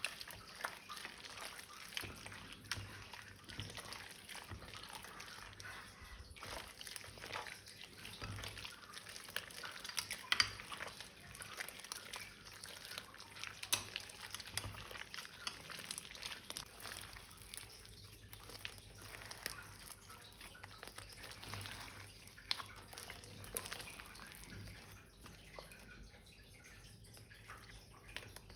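Slime being mixed and squeezed by hand, giving a steady run of small wet, sticky clicks and crackles.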